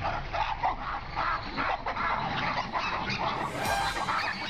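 A group of animals giving many short, overlapping yelps and barks in quick succession while they corner and harass a big cat.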